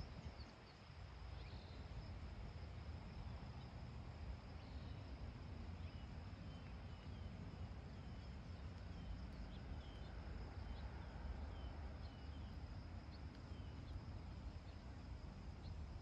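Quiet outdoor ambience: a low wind rumble on the microphone under a steady high insect buzz. A small bird chirps repeatedly, about twice a second, through the middle.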